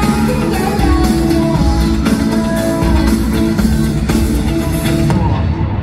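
Live pop song with electric guitar and drums playing loudly over the concert sound system; it cuts off about five seconds in.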